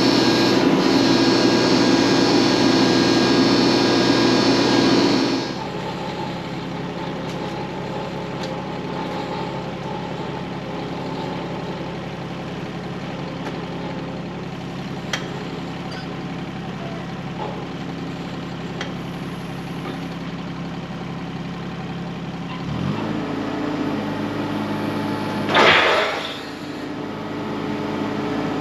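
An engine running steadily, loudest and busiest for about the first five seconds, then dropping suddenly to a lower, steadier running level. Its sound shifts again near the end, with a short loud rush of noise shortly after.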